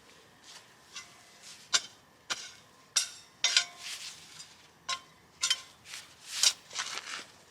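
Garden digging fork driven into soil to lift potatoes: a run of about a dozen irregular, sharp scraping crunches, a few with a brief metallic ring.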